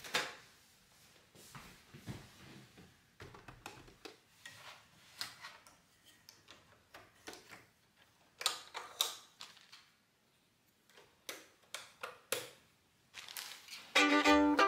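Scattered clicks, taps and knocks from hands working at an electric sewing machine, irregular rather than steady stitching. Fiddle and guitar music comes in near the end.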